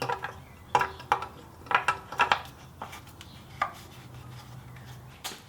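A string of light, irregular clicks and knocks: the cleaned oil filler cap being handled and screwed back onto the engine's filler neck.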